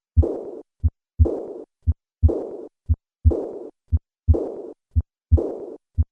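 Heart sounds of severe aortic regurgitation, about one beat a second. Each beat has a short first heart sound, then the second heart sound followed at once by a high-pitched, blowing diastolic murmur that fades away (decrescendo) before the next beat.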